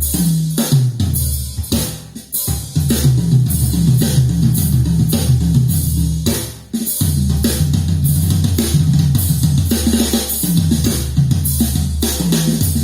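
Recorded drum-and-bass music played back over Infinity Kappa 7 loudspeakers: a deep bass line with kick and snare hits. The music drops out briefly about two seconds in and again just past six seconds.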